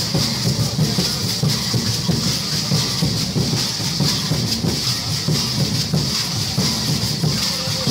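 Rhythmic folk percussion of a congado or marujada group: drums beating fast under a steady, hissing shake of rattles.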